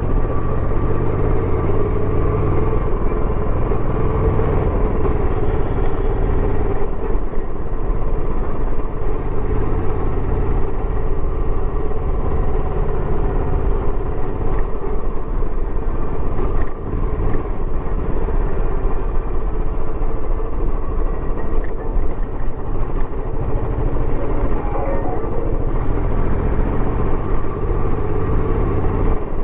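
Royal Enfield Bullet 350X single-cylinder engine running through its stock exhaust while being ridden, with an even, steady note.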